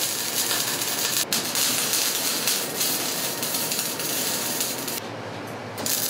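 MIG welding arc on sheet steel, a steady crackling hiss. The arc stops about five seconds in and strikes again just before the end.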